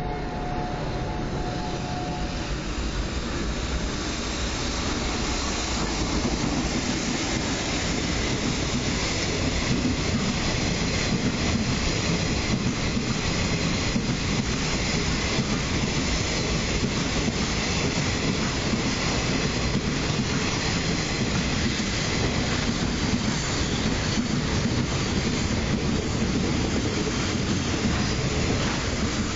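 Freight train of container wagons hauled by a JR Freight EF65 electric locomotive passing through a station: a steady rumble of wheels on the rails that grows louder over the first several seconds, then holds.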